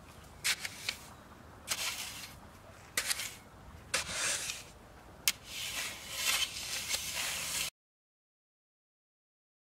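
A shovel working loose sandy soil: a string of short scrapes of the blade and hissing swishes of sand being tossed and poured into a hole. It cuts off to dead silence for the last two seconds.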